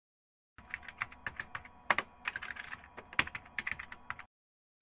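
Rapid, irregular clicking like typing on a keyboard, starting about half a second in and stopping abruptly about a second before the end.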